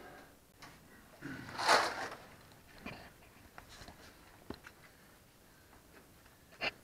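Scraping and rustling of someone crawling into a narrow pipe over dry wood and debris. A louder scrape comes about two seconds in, with a few small knocks and clicks later.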